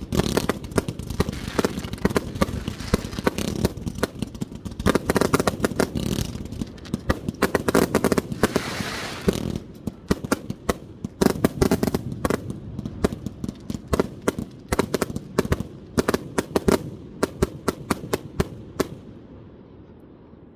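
1.3G display fireworks firing from 100-shot basins: a dense, rapid barrage of shots and bursts with crackle. After about ten seconds it thins to separate bangs, and it stops shortly before the end.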